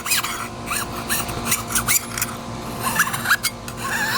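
Softened paint being scraped off a BMX frame after paint stripper has worked on it, in a series of short rasping strokes.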